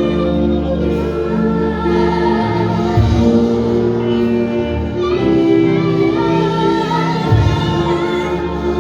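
Live church worship music: singing over held, sustained chords from the band, the harmony shifting every few seconds.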